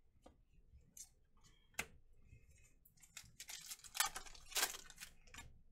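A few light clicks and taps, then from about three seconds in the crackling rip of a foil trading-card pack wrapper being torn open by hand.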